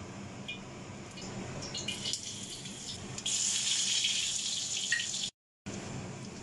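Garlic sizzling in hot oil in a wok. A light crackle of the heating oil builds into a loud, steady sizzle about three seconds in, which cuts off abruptly about two seconds later. A steady fan hum runs underneath.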